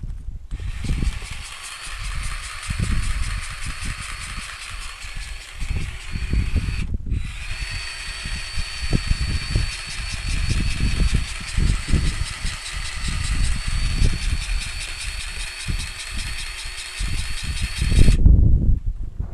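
Small electric power-tool motor whining in two long runs, stopping briefly about seven seconds in and cutting off near the end, over a gusty low rumble.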